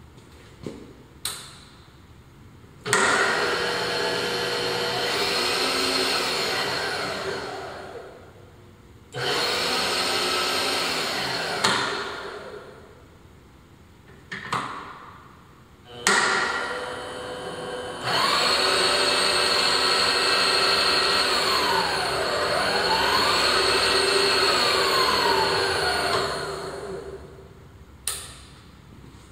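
Electric X-axis power feed on a JET JTM-4VS-1 vertical milling machine, running the table in four separate runs of steady motor whine, with sharp switch clicks as it is stopped and started. In the longest run, near the end, the whine dips in pitch and climbs back up.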